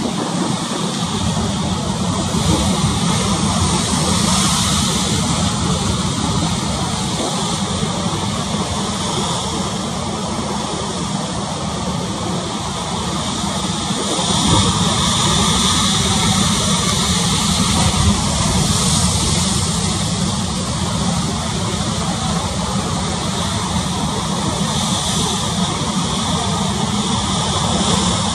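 Steady rushing noise of a choppy sea, with the hiss swelling every few seconds.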